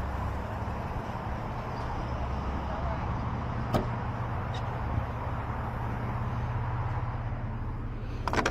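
Steady low hum of a car engine idling, with a sharp click about four seconds in, another about a second later, and a quick run of clicks near the end.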